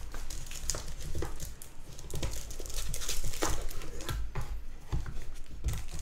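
Plastic-sleeved prints and packaging crinkling and rustling as they are handled and lifted out of a cardboard box, with irregular crackles and soft knocks against the box.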